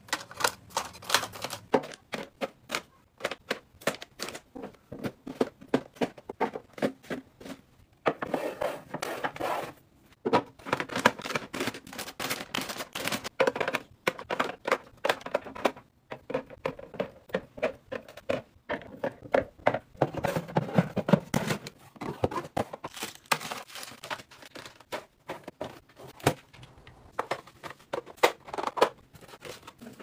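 Close-up clicks, taps and knocks of hard plastic storage bins and containers being handled and set down, with stretches of crinkling from packaging.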